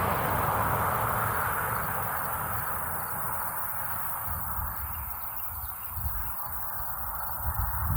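A passing vehicle's noise fading away, leaving outdoor ambience with faint high chirps repeating about two and a half times a second and some low rumbling.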